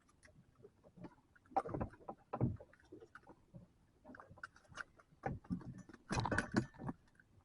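Irregular knocks and clatters on a small fishing boat, in two bunches: one about a second and a half in, and a denser run in the last couple of seconds.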